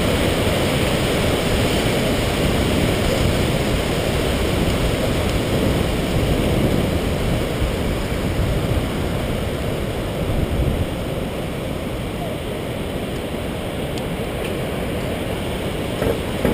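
Steady roar of rushing water from the Genesee River running high, with both dam gates open. It eases a little in the second half.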